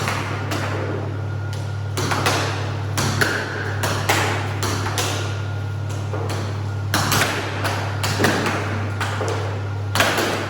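Irregular sharp knocks and clacks, some with a short ringing tail, over a steady low hum.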